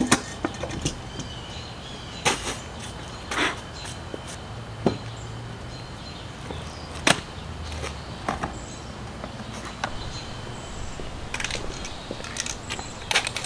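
Scattered knocks, clunks and short rustles of supplies being set down and handled on a wooden workbench: a steel motorcycle exhaust pipe, a roll of exhaust wrap and other items. The sharp sounds come one at a time every second or two, over a faint steady hum.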